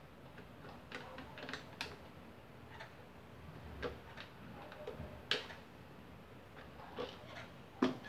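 Scattered light clicks and ticks of a screwdriver working a screw out of a plastic fan grille, with one sharper click about five seconds in.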